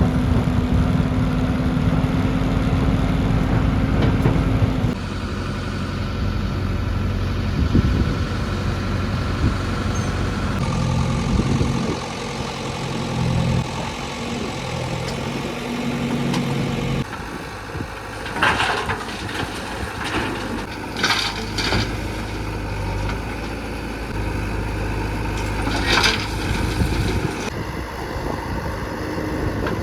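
JCB 3DX backhoe loader's diesel engine running as it digs and loads mud, the engine note shifting abruptly a few times. In the second half come several sharp knocks and clanks.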